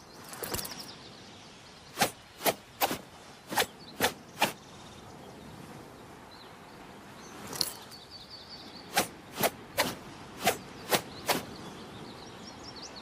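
Sword strikes: two runs of six sharp hits, about two a second, the first starting about two seconds in and the second about nine seconds in. Each run is preceded by a brief rush of noise. Birds chirp faintly in the background.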